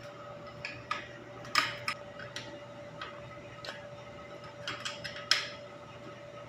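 Hand tools clicking and clinking against metal pipe fittings in a pump repair: a dozen or so sharp, irregular clicks, the loudest about one and a half seconds in and near five seconds in, over a faint steady hum.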